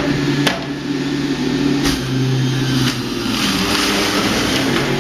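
Electric juicer motor running steadily as apple and mint are pushed through it, its hum dropping in pitch about two seconds in as it takes the load. Three sharp knocks from the food going into the chute.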